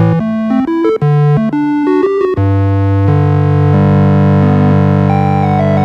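Keyboard-synthesizer music: quick changing notes at first, then from about two and a half seconds in a long held chord with a melody stepping downward over it near the end.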